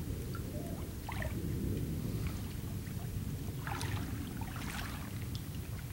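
Light water splashing and dripping around a kayak, in short scattered bursts that come thickest near the end, over a steady low rumble.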